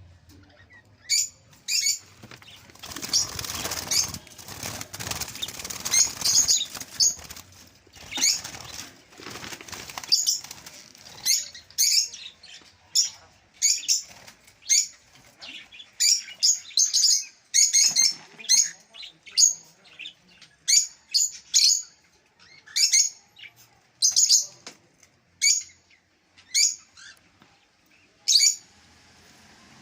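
Small ornamental pet birds chirping, with many short high calls in quick, irregular succession. A stretch of fluttering wing noise runs from about three to ten seconds in.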